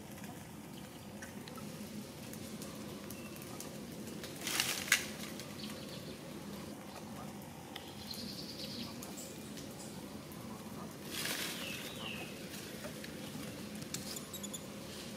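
Steady outdoor background with two short noisy bursts, one about a third of the way in with a sharp peak and one about three quarters through, and a few faint high chirps.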